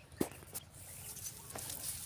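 Footsteps and leaves rustling as someone moves through chili pepper plants, with a sharp knock about a quarter second in and a few softer taps after.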